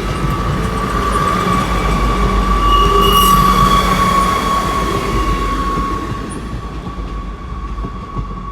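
Class 158 diesel multiple unit passing, its wheels giving a steady high squeal that sinks slowly in pitch over a low engine rumble. It grows loudest about three seconds in, then fades away.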